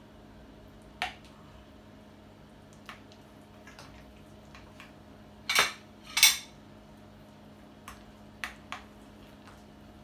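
Metal serving utensil clinking and scraping against a glass baking dish and a plate as a portion of lasagna is cut and lifted out: scattered clinks, the loudest two close together about halfway through.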